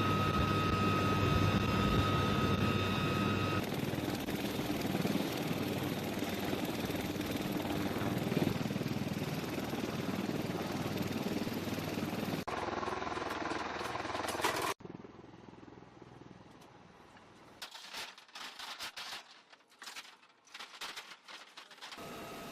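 UH-1Y Venom helicopter running: steady turbine whine and rotor noise. About two-thirds through the sound cuts off abruptly to a much quieter stretch with scattered crackles.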